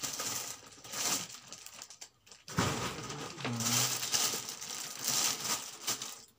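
Plastic gift wrapping crinkling and rustling as it is pulled open and handled, in several bursts with a short pause about two seconds in.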